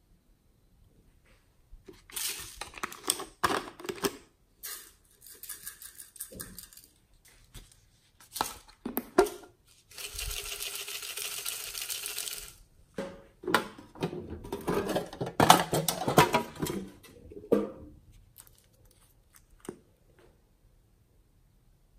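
Small plastic containers being handled and glitter and sequins shaken out over slime: scattered clicks and rattles, with a steady hiss lasting about two seconds near the middle.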